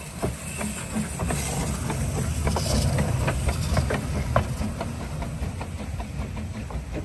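Small narrow-gauge steam locomotive (an Andrew Barclay 0-4-0 well tank) running slowly past close by, with a low rumble, irregular clanks and knocks from its wheels and motion, and hissing steam. It grows louder up to about the middle and then eases off as it goes by.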